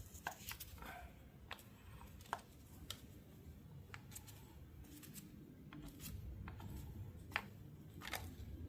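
Light metal clicks and taps at irregular intervals from hand tools and small parts being worked on a lathe headstock during teardown, with one sharp tick about two seconds in and another about seven seconds in.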